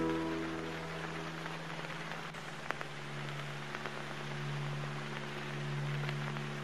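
Soundtrack ambience: a strummed acoustic guitar chord rings out in the first second. After that a soft, low, sustained drone swells and fades slowly under a steady crackling hiss.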